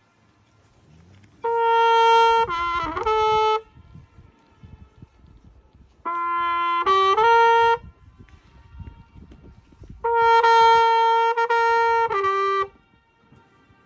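A flugelhorn played in three short melodic phrases of held notes, each followed by a pause of a few seconds: the boatman's echo demonstration, leaving room for the mountain walls to answer.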